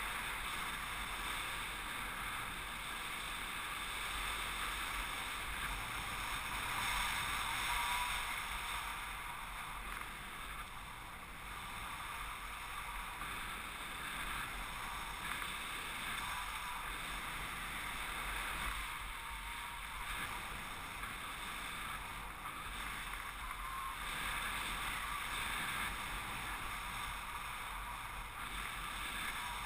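Airflow rushing over the camera's microphone in paraglider flight: an even hiss that swells slightly about eight seconds in.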